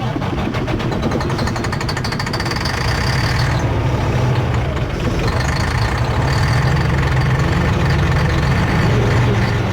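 Detroit Diesel Series 60 inline-six diesel running steadily, with a faint high whine coming and going. The engine is running on a freshly replaced air compressor that is building air pressure.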